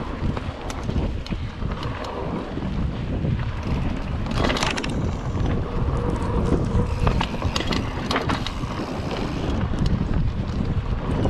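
Wind buffeting the microphone of a mountain bike ridden down a bumpy dirt trail, with the bike rattling and clicking over the ground; a louder rustling rush about four seconds in.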